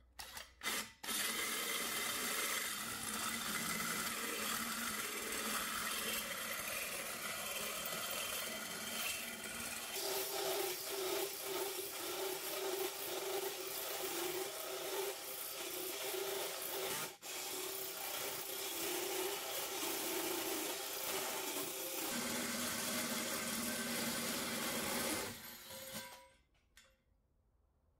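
Hole saw in a Stanley FatMax cordless drill cutting through a steel plate: a steady grinding rasp of the saw teeth on metal over the drill's motor, with a few short starts at the beginning, a brief pause about two thirds of the way through, and a stop near the end as the cut finishes.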